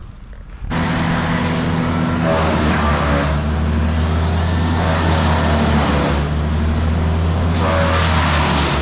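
An engine comes in suddenly about a second in and runs steadily at a constant low pitch, with a hiss above it that swells and fades a few times.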